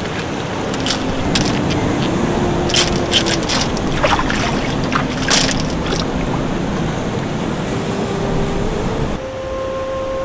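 Sea surf washing over rocks, a steady rush, with sharp clicks and splashes through the first half; the rush thins out near the end.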